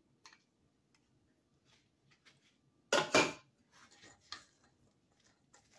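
Kitchen handling sounds: corn kernels being tipped into a stainless steel mixing bowl and a spatula mixing them into batter, with soft scrapes and ticks. About three seconds in, two quick clattering knocks of dishware.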